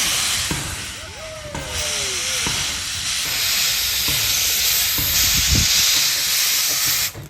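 Steam locomotive venting steam: a loud, steady hiss that cuts off suddenly near the end.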